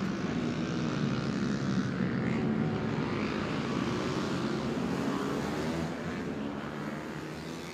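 150cc underbone racing motorcycles running at speed on the circuit, a steady engine drone with the pitch gliding up and down. It gradually fades toward the end.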